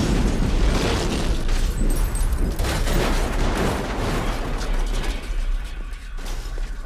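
Aftermath of a large film explosion: a loud, dense rush of rumbling, rattling noise with a deep low end, slowly dying away near the end.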